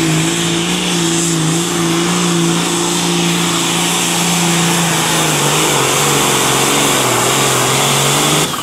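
Diesel pulling tractor's engine at full throttle, hauling the weight sled: a loud, steady, high-revving drone with a strong hiss on top. The pitch sags briefly a little past halfway as the engine labours under the load, then holds. Near the end the sound drops off suddenly as the run ends.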